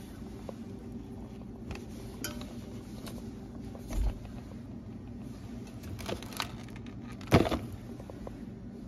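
Grocery packages being handled on a countertop: scattered clicks and knocks of plastic packaging, a low bump about four seconds in, and the loudest knock a little past seven seconds, over a steady low hum.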